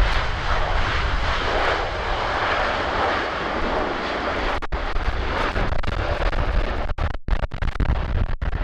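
Jet engine noise of a Boeing 787-8 Dreamliner airliner, a steady rushing sound over a heavy low wind rumble on the microphone. The sound cuts out briefly several times in the second half.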